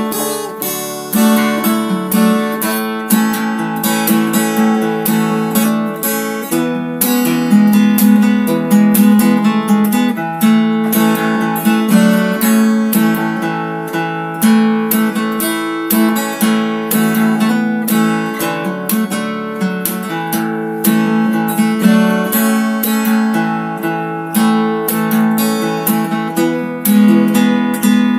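Background music: acoustic guitar strumming steadily.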